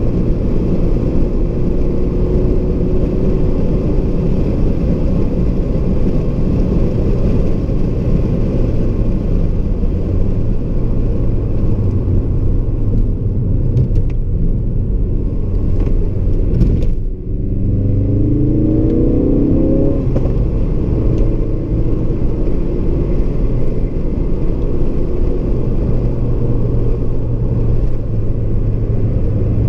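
Ford Focus RS Mk3's turbocharged 2.3-litre four-cylinder engine running hard on track, heard from inside the cabin together with heavy road and wind noise. About seventeen seconds in, the engine note drops off briefly, then climbs in pitch over the next few seconds as the car pulls again.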